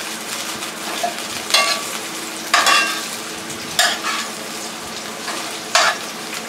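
Sliced onions sizzling steadily in a frying pan while a utensil stirs them, scraping across the pan several times.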